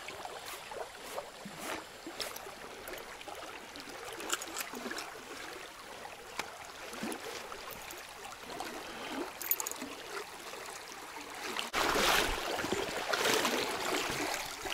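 Shallow river current rippling and running over a riffle, a steady rushing, with a few faint light clicks. About twelve seconds in, a louder rush of water begins abruptly.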